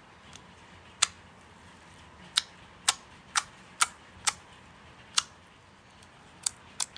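About ten sharp, short clicks at irregular intervals, some close together, over a quiet background.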